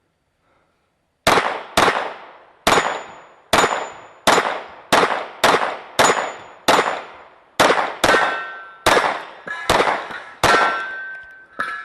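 Rapid string of about fifteen gunshots, roughly half a second to a second apart, several followed by the ringing clang of bullets striking steel targets.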